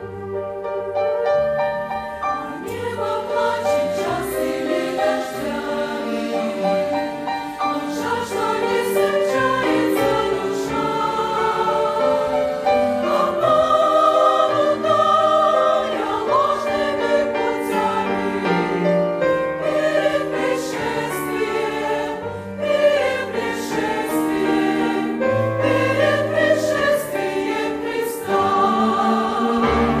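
Large mixed church choir of women's and men's voices singing a hymn in Russian, in sustained, full chords that keep moving without a break.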